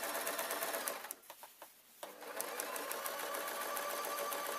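Electric domestic sewing machine stitching a long seam in a strip of fabric, its motor hum laced with rapid needle ticks. It stops for about a second, a second in, then starts again and runs steadily.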